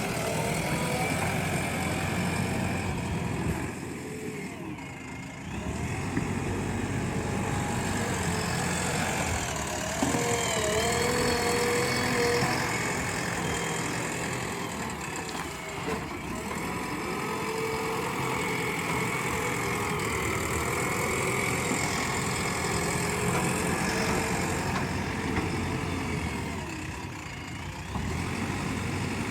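JCB 3DX backhoe loader's diesel engine running steadily under working load, its pitch rising and falling as the engine speed changes. It eases off briefly a few seconds in and again near the end.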